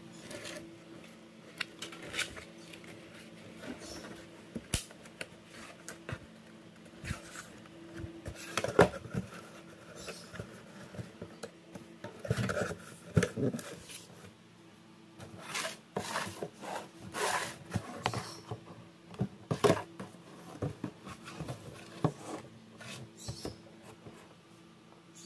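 Cardboard shoe box and its paper lining being handled: irregular taps, scrapes and rustles, with a sharper knock about nine seconds in.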